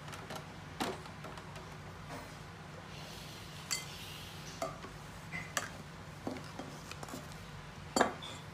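Kitchen utensils being handled: scattered light clinks and knocks of a steel spoon, a steel pot and a glass bowl, the sharpest one near the end.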